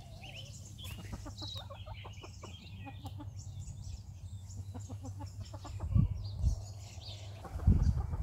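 Chickens clucking, with a few dull low thumps about six seconds in and again near the end.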